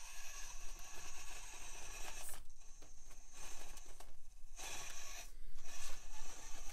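Furitek Micro Komodo brushless motor and drivetrain of a 1/24-scale SCX24 micro rock crawler whining at a high pitch as it crawls, with scraping. The whine stops briefly three times, about two and a half, four and a half and five and a half seconds in.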